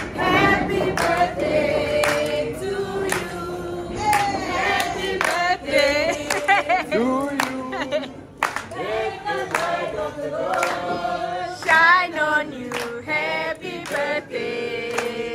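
A group of voices singing a birthday song together in chorus, with hand-clapping in time.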